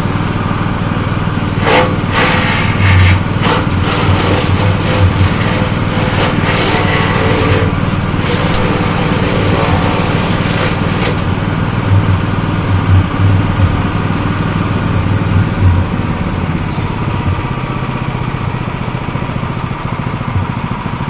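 Small engine-driven grass chopper running steadily. From about two seconds in to about eleven seconds in, a harsher, noisier stretch rides over the engine drone, as when grass is going through the cutter.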